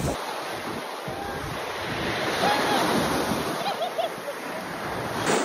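Small waves washing onto a sandy beach, with wind on the microphone and faint distant voices in the middle.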